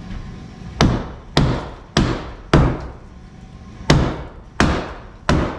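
Hammer blows on wood, seven sharp strikes: four about half a second apart, a short pause, then three more.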